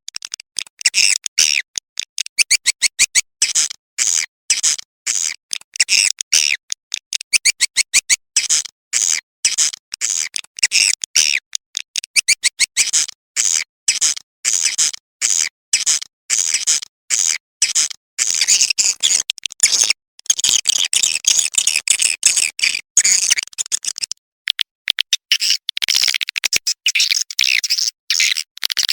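Recorded swiftlet calls: rapid, high-pitched twittering chirps and clicks in quick bursts with abrupt gaps between them. This is a mixed swiftlet lure sound, played to draw edible-nest swiftlets into a bird house.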